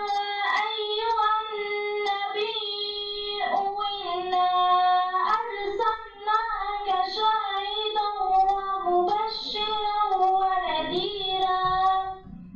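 A group of children singing together in unison, a single melody with long held notes that glide from pitch to pitch; the singing breaks off near the end.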